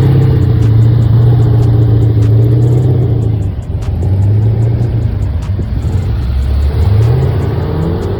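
A car engine revving loud and close: the exhaust note rises, holds, falls about three seconds in, then climbs again near the end.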